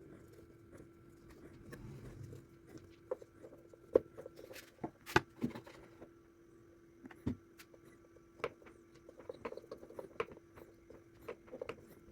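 Small scattered clicks and taps of hands working on an electric fan motor's loose sleeve bushing and its cap, fitting the parts back together, with the sharpest knocks about four and five seconds in. A faint steady hum runs underneath.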